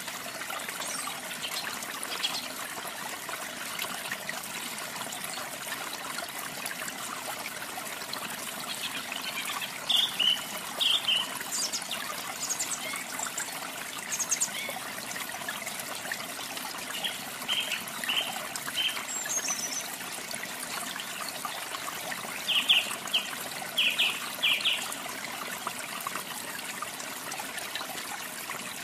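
Steady rush of a waterfall, with short groups of canary chirps from about a third of the way in, the loudest just after two-thirds of the way through.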